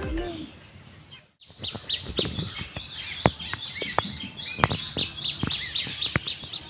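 Many small birds chirping busily in quick, overlapping calls, starting about a second and a half in after background music fades out.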